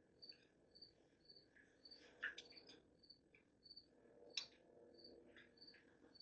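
A cricket chirping faintly and steadily, short high chirps a little more than one a second, with a few faint clicks and knocks of work on engine parts.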